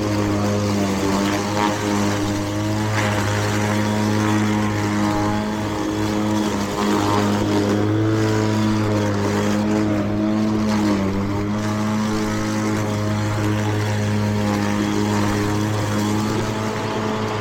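Battery-powered Mowrator remote-control mower running with its blade spinning: a steady motor hum whose pitch sags slightly a few times as it takes on load.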